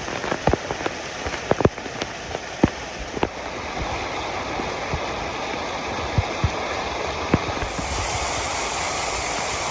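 Waterfall water falling in a steady rush, with sharp drips and splashes sounding over it, most frequent in the first three seconds.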